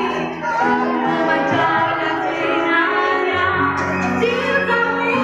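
A young girl singing a melody over instrumental accompaniment with steady, held low notes.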